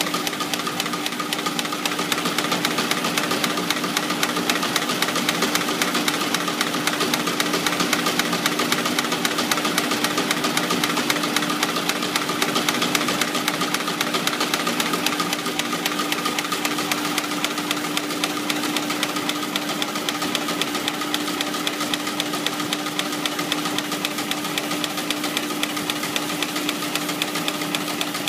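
CNC brush tufting machine running continuously, its tufting head clicking in a rapid, even rhythm over a steady motor hum as it punches tufts into a ceiling brush block.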